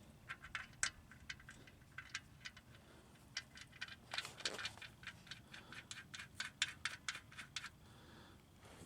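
Socket ratchet clicking in short runs of sharp metallic clicks, a few per second, as the oil drain plug is turned back in.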